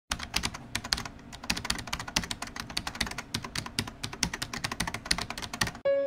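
A fast, uneven run of sharp clicks, like typing on a keyboard. It stops suddenly just before music comes in at the very end.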